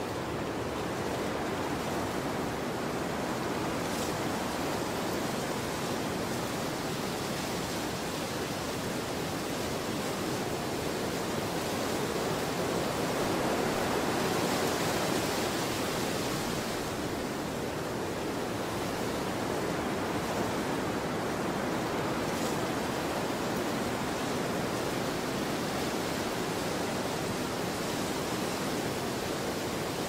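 Steady wind ambience: a continuous rushing noise that swells slightly about halfway through, with no distinct gusts or breaks.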